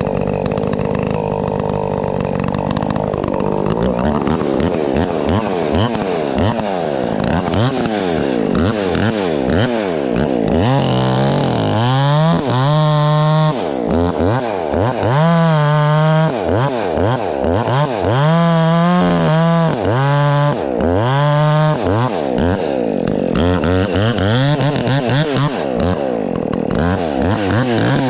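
Two-stroke chainsaw running: it holds a steady high speed for the first few seconds, then its engine pitch repeatedly drops and climbs back through the rest as it cuts into wood under varying load.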